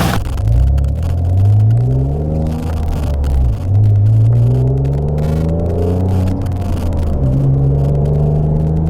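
Renault Clio V6's mid-mounted 3.0-litre V6 accelerating through the gears. The engine note rises several times, dropping back at each gear change, then holds a steady pitch near the end.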